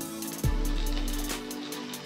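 Background music with a deep kick drum hit about half a second in, over sustained chords and fast high ticks.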